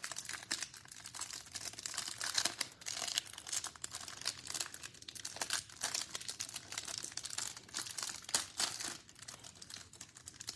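Clear plastic wrapper of a trading card pack crinkling and tearing as it is worked open by hand, a dense, irregular crackle throughout.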